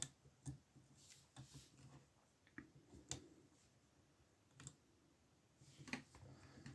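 Faint scattered clicks and light scrapes of lock picks and a tensioner working the levers inside an old Burg lever padlock, with the strongest clicks about three and six seconds in.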